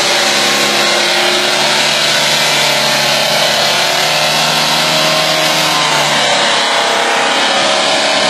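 Diesel engine of a tandem road roller running steadily under load as the roller drives, fuelled on heating oil. The pitch shifts a little about six seconds in.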